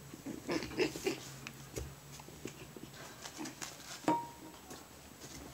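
Puppies play-wrestling: short yips and growls with scuffling on the rug, most of it in the first second, and a sharp click about four seconds in.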